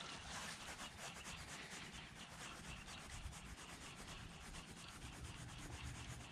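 Spinning reel being cranked to retrieve a lure: a faint, steady rubbing whir with a fast, even ticking, about eight or nine ticks a second.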